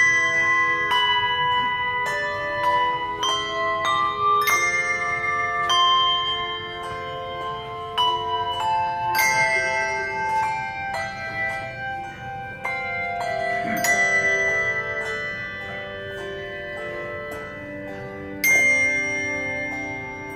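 Handbells playing a slow piece: struck bells ring on and overlap into chords, with louder chords struck about every four to five seconds.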